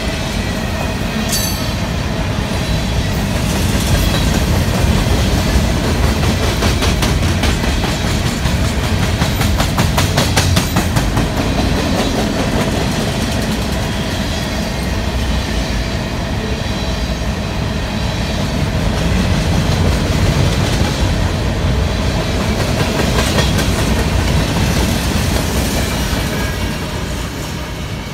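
Covered hopper cars of a CSX freight train rolling past close by: a steady rumble of steel wheels on rail, with clickety-clack from the wheels and a run of quick clicks around ten seconds in. The sound eases off near the end as the last cars go by.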